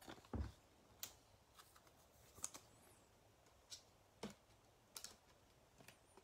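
Near silence broken by about a dozen faint, sharp clicks and taps at uneven intervals, with a soft low thump just under half a second in.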